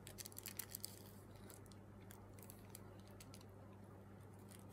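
Tissue paper crinkling against the face as a man wipes his mouth, a few soft crackles in the first second. After that there is only a faint steady low hum.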